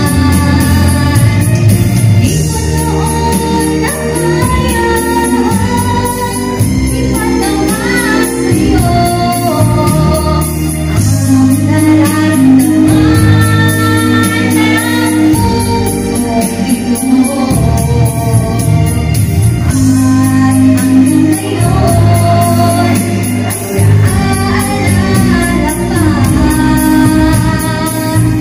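A woman singing a heartfelt song solo into a handheld microphone over instrumental accompaniment, her voice carrying long held notes.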